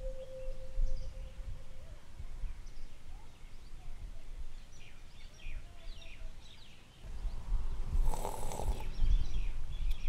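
Outdoor ambience: a low wind rumble with small birds chirping in short, quick calls. A lingering tone of background music fades out in the first two seconds, and a brief rustling noise comes about eight seconds in.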